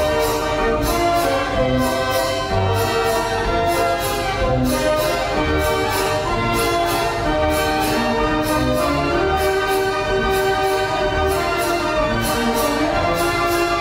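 Orchestral-style music with brass, a steady melody of sustained notes over repeated bass notes.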